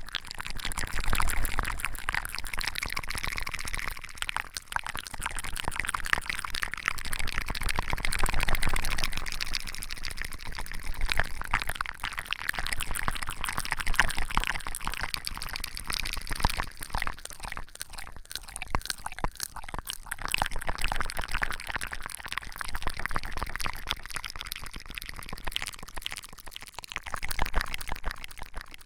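Close-miked liquid sound: a dense, fine crackling wash that swells and eases every few seconds.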